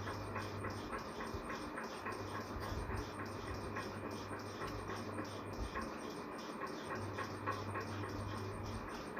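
Light, quick scraping strokes by hand, about three to four a second, as the blank plate is cleaned up around the fitted USB jack. A low electrical hum cuts in and out.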